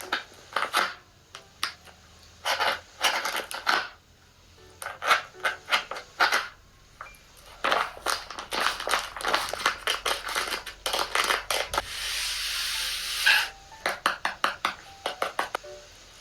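Repeated clattering, clicking and scraping of small hard objects being handled, in short irregular clusters, with a steady hissing noise lasting about a second near the end.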